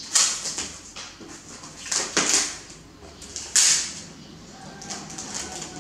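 Plastic packaging and cellophane wrapping being handled, crinkling in three short bursts: just after the start, about two seconds in and about three and a half seconds in, with lighter rustling between.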